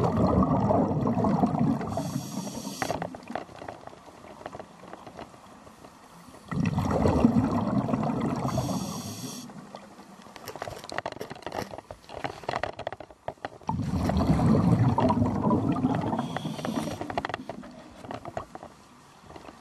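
Scuba diver's regulator breathing, heard underwater: three loud rumbling rushes of exhaled bubbles about seven seconds apart, each ending in a short whistling hiss from the regulator.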